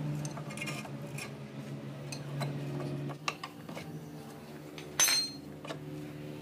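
Metal clinks and knocks as a pry bar levers the car's lower control arm ball joint stud out of the steering knuckle, with one sharp ringing metallic clink about five seconds in. Steady background music plays underneath.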